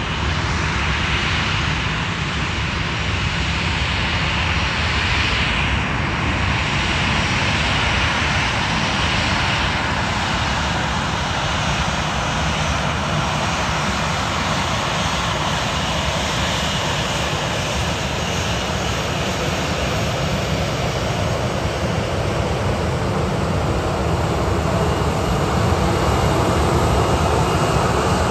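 Steady rushing whine of the CFM56 jet engines of a Boeing 737-800 taxiing past at low thrust, growing a little louder near the end as it comes close.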